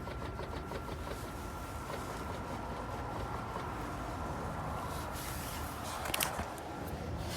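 BMW 535i xDrive moving slowly with a low rumble and a faint steady whine from its failing CV axle, with one sharp clunk about six seconds in.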